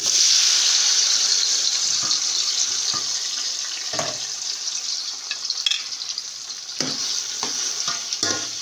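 Diced tomatoes hitting hot oil and frying green peppers in a steel pot: a loud sizzle that starts suddenly and slowly dies down. A spoon scrapes and knocks against the pot now and then as the mix is stirred.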